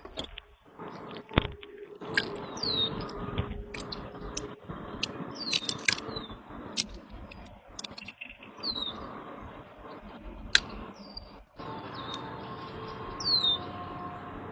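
A bird calling outdoors with short, high, falling chirps every few seconds. Several sharp clicks and knocks mix in, the loudest about a second in and again near ten seconds.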